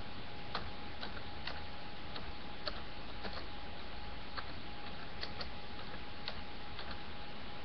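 Faint, irregular clicking, about two clicks a second, over a steady hiss and a faint high hum.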